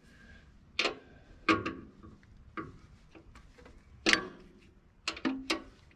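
About seven sharp metallic clicks and clinks at irregular intervals, some ringing briefly. This is hand work with steel tools on a Wood-Mizer LT40 sawmill's band wheel adjustment, its bolt and jam nut.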